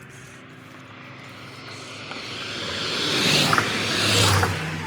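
A vehicle passing by on the road: tyre and engine noise swell over a couple of seconds to a peak about three to four seconds in, then start to fade.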